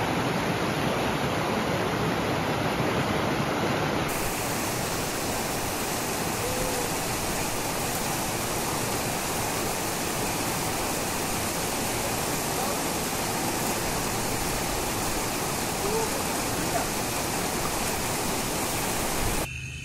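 Steady rushing of flowing river water, an even noise with no distinct events; its tone shifts slightly about four seconds in.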